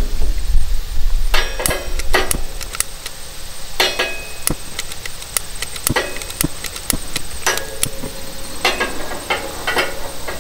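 Repeated sharp clicks of a long-nosed utility lighter's igniter being sparked at the burner of a Coleman two-burner propane stove, coming in groups from about a second and a half in. A low rumble sits under the first second or so.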